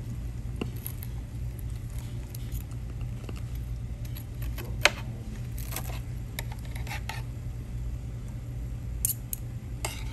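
Scattered light clinks and taps of cutlery against dishes at a meal table, the sharpest about halfway through and a quick pair near the end, over a steady low hum.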